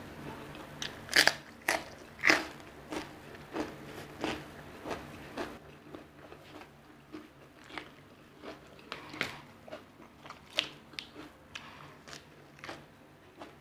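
A person chewing and crunching crisp food close to the microphone: sharp, irregular crunches, the loudest a second or two in, then about one or two a second.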